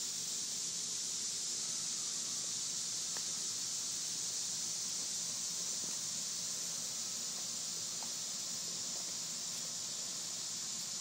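A steady high hiss with a few faint clicks.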